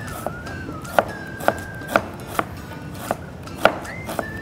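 Kitchen knife slicing a red onion on a cutting board: sharp knocks of the blade striking the board, about two a second and slightly uneven.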